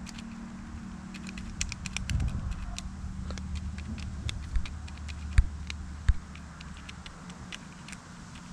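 Small, sharp, irregular clicks and crinkles of hands working a carp rig and a PVA bag of pellets. About halfway through come three dull knocks, the middle one the loudest.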